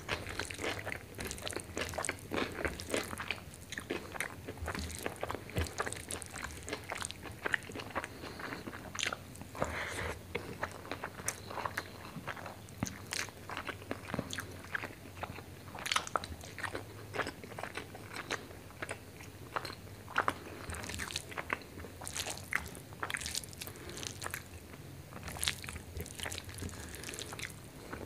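Close-miked eating sounds: fingers mixing rice into chicken liver and gizzard curry on a plate, and chewing, a dense, irregular run of clicks and smacks.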